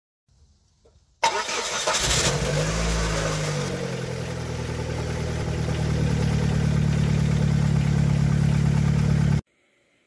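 Dodge Neon's four-cylinder engine starting about a second in, revving briefly as it catches and then settling into a steady idle. The sound cuts off suddenly near the end.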